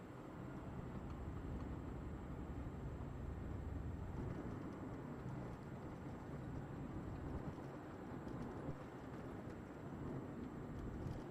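Inside the cabin of a 2005 Fiat Punto II with its 1.2-litre, 60 hp four-cylinder petrol engine, driving along: a steady low engine drone mixed with tyre and road rumble.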